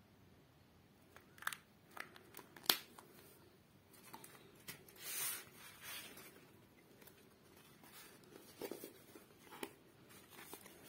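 Handling of a plastic dip cup and a paper-lined cardboard pizza box: a few sharp clicks and taps in the first three seconds, then a rustle of paper and cardboard around five to six seconds in, and a couple more taps near the end.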